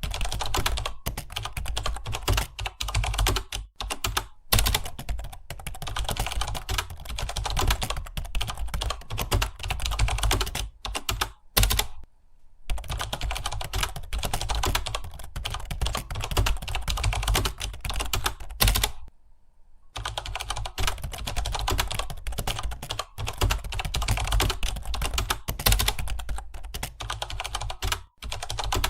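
Fast, continuous typing on a computer keyboard, with short breaks about twelve seconds in and again around nineteen seconds.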